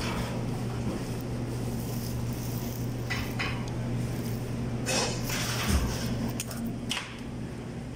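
Plates and dishes clinking and knocking on the table over a steady low hum, with a few short sharp clatters through the middle.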